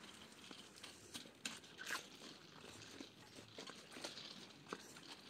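Near silence with faint, scattered ticks and rustles, like handling and movement noise.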